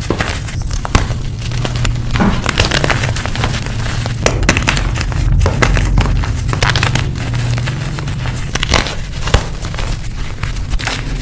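Blocks of gym chalk overloaded with cornstarch being crumbled and crushed by hand: a dense, irregular run of crunches and crackles, with a steady low hum underneath.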